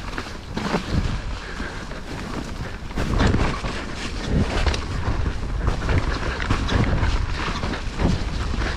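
Mountain bike descending a wet, slick dirt trail: wind buffets the microphone and the tyres rumble over the ground, with irregular knocks and rattles as the bike hits bumps.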